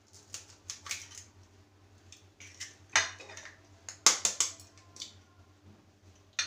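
Eggs being cracked into a bowl, one after another: sharp cracks of shell, loudest about three and four seconds in, with lighter clicks as the shells are broken open.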